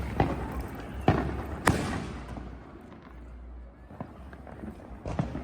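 Fireworks going off: three sharp bangs in the first two seconds, then a lull with one faint pop, and more bangs starting near the end.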